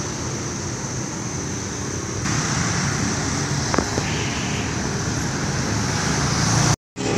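Steady road traffic with motorbikes passing, a little louder from about two seconds in. The sound drops out for a moment near the end.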